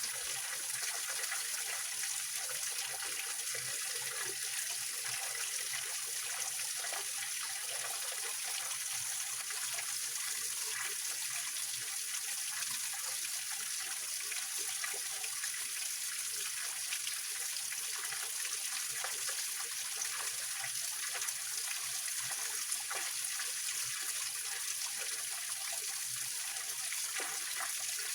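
Small waterfall of a mountain spring, water splashing and trickling over rocks in a steady, even rush.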